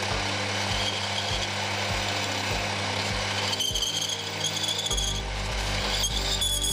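Metalworking machine tool running: a steady motor hum with a regular low knock a little under twice a second. About halfway through, a high ringing whine comes in.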